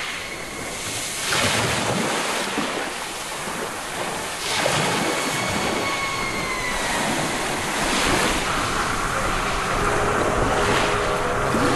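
A loud rushing noise, like surf or wind, that swells about every three to four seconds.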